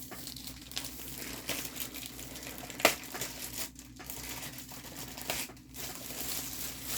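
Crinkly packaging rustling and crinkling as it is handled and opened, with one sharp snap about three seconds in.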